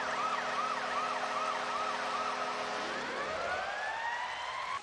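Arena goal celebration after a home goal: a steady goal-horn tone with a yelping siren that rises and falls about three times a second, over crowd noise. About three seconds in, the horn and yelp stop and a siren tone rises steadily.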